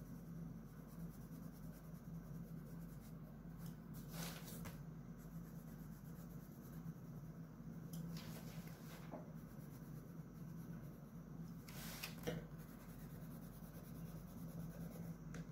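Green colored pencil rubbing faintly on drawing paper while shading in a shape, with a few brief louder swishes about four, eight and twelve seconds in.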